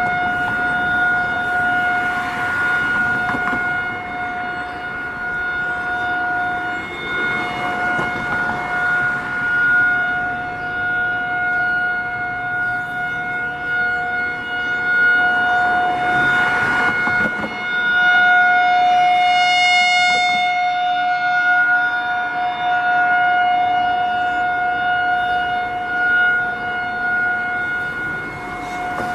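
Emergency Alert System alarm recording: a civil-defense-style siren holding one steady pitch, swelling and easing in loudness, with a few brief rushing noises mixed in.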